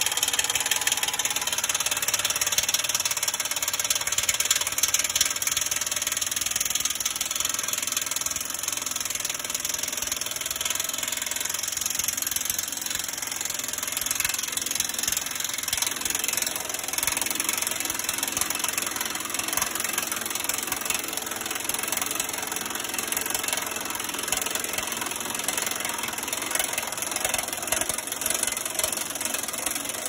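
Pneumatic impact wrench hammering without a break on the leaf spring eye bolt at the steer axle's front spring hanger, cutting off near the end.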